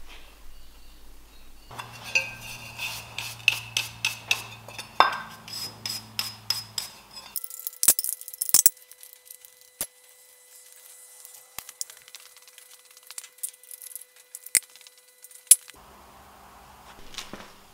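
Caked dirt being scraped and knocked out of a rusty metal motor terminal box: a run of sharp metallic clicks, scrapes and clinks, with the box ringing briefly under some strikes. The sound breaks off and changes abruptly a few times.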